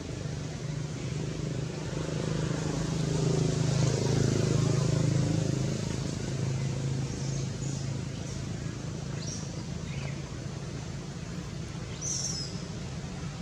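A low, steady engine hum, like a motor vehicle running or passing nearby, growing louder for a few seconds in the middle. A few short, high chirps come in the second half.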